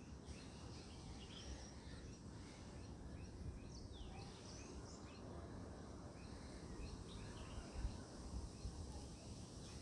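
Faint outdoor ambience: a steady low background noise with scattered distant bird chirps.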